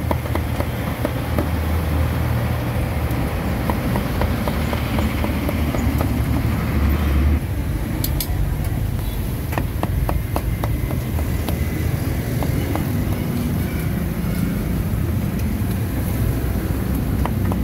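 Cleaver chopping roasted pork on a wooden chopping block in quick repeated strokes, in bursts, over a steady rumble of passing traffic.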